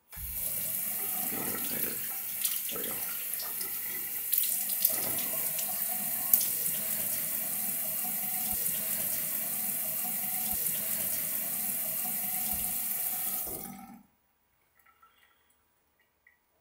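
Bathroom sink faucet running in a steady stream, with water splashing over hands being washed under it. It cuts off abruptly near the end, leaving a few faint clicks.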